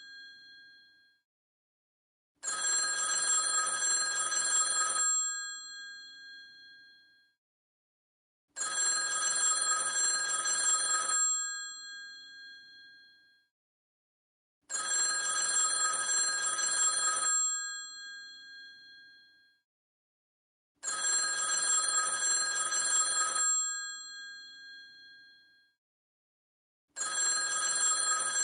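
Old telephone's bell ringing in a repeating cadence. Each ring lasts about two and a half seconds and then fades away, with a new ring about every six seconds, five times in all.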